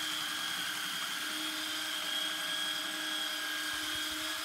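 Electric power sander running steadily on a round wooden tabletop, a constant whine over an even hiss.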